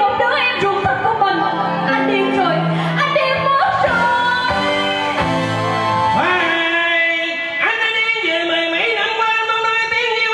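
Vietnamese cải lương duet sung live into microphones over instrumental accompaniment. A woman's voice gives way to a man's partway through.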